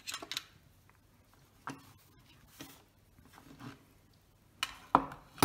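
Scattered soft clicks and taps of a small screwdriver and camera parts being handled and set down on a paper-towel-covered workbench, with a pair of louder knocks near the end.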